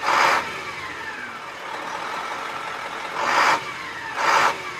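KamAZ-43118 truck's diesel engine, heard from inside the cab, revved in three short throttle blips: one at the start and two close together near the end. After each blip the pitch falls back toward idle.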